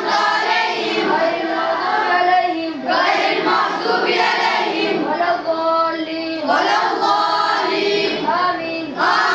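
Schoolchildren reciting the Holy Quran aloud in a sing-song chant, in phrases a few seconds long.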